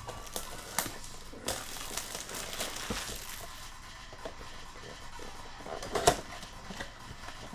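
Plastic shrink wrap crinkling and tearing as it is pulled off a cardboard trading-card box, with a few sharp taps and clicks from the box being handled, the loudest about six seconds in.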